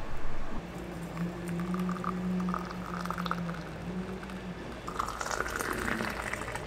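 Hot milky tea poured through a steel tea strainer into a stainless steel tumbler, then poured from a height into the tumbler in a thin stream. A low steady hum runs under the first few seconds and stops about halfway through.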